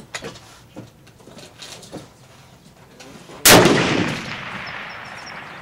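A single shot from a scoped Mauser Karabiner 98k rifle in 8mm Mauser, about three and a half seconds in, followed by a long echo that dies away slowly.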